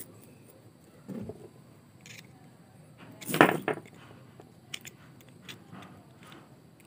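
Stainless steel flexible hose and a thin metal rod clinking and rattling as they are handled, with a louder clatter about three and a half seconds in.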